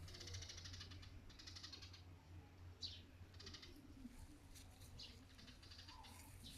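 Near silence: a few faint, brief high chirps and buzzy trills, over a low steady hum.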